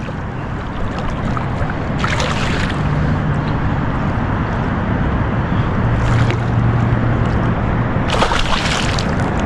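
Water sloshing and splashing at the side of a small fishing boat, with short sharper splashes about two seconds in, around six seconds in and near the end, as a hooked bass is brought to the boat.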